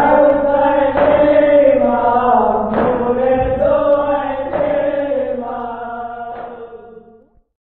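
Male voices chanting a nauha (Urdu lament) in unison on long held notes, with a sharp accent roughly every two seconds, over a steady low hum. The chant fades out and stops near the end.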